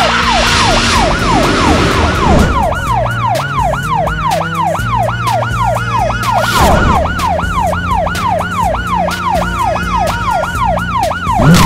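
Police car siren in yelp mode, its pitch sweeping up and down rapidly, about three sweeps a second without a break.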